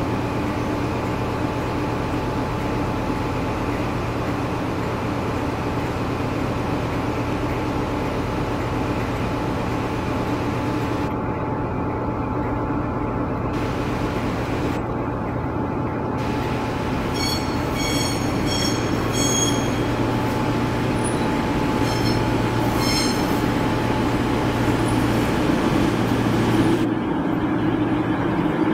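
East Midlands Trains Class 222 Meridian diesel multiple unit approaching and drawing into the platform, its underfloor diesel engines running with a steady hum that grows a little louder near the end. About two-thirds of the way through comes a run of short high squeaks, about two a second, typical of wheels squealing on the curves.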